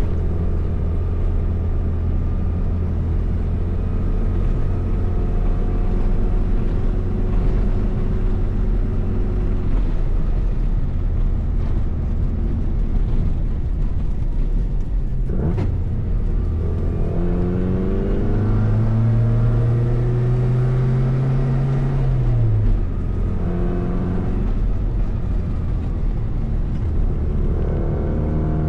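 A car driving, its engine running with a steady low drone. The engine pitch rises as it accelerates about 17 seconds in, and again near the end.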